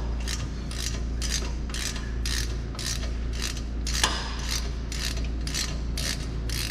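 Hand ratchet clicking in quick back-strokes, about three a second, as a T50 Torx bit unscrews a brake caliper's bottom guide pin. One sharper click about four seconds in.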